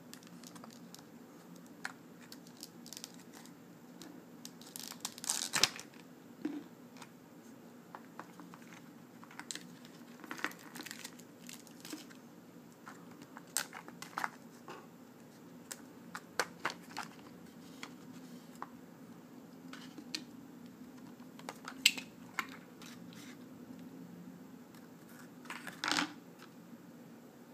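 Clear plastic packaging being handled and opened by hand, crinkling and clicking in scattered bursts, the loudest about a fifth of the way in and twice near the end.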